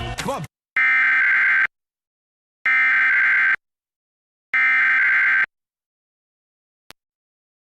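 Emergency Alert System SAME header: three identical bursts of harsh, buzzing digital data tones, each just under a second long with about a second of silence between them, marking the start of a Required Weekly Test. A single faint click follows near the end.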